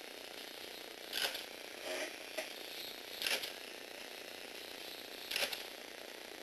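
Lego Technic jumping mechanism driven by a small Tamiya gearbox motor, running steadily with a short rattling clatter of plastic parts about every two seconds, three times.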